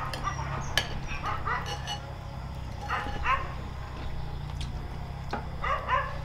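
A dog barking in short pairs of barks, three times over, with the odd sharp clink of a spoon against a bowl.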